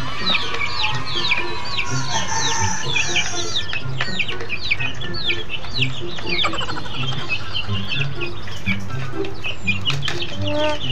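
A flock of domestic chicks peeping continuously, many short, high, falling peeps overlapping one another.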